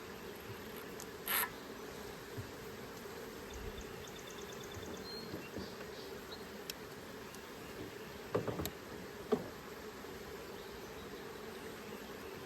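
Honeybees buzzing steadily around an open hive, with a sharp knock about a second in and a few more knocks later on.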